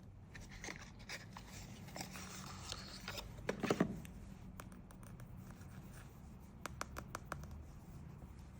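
Hands unboxing and handling cosmetics packaging, with light scratching and rustling on cardboard or plastic. There is a louder rustle about three and a half seconds in and a quick run of sharp clicks or taps near seven seconds.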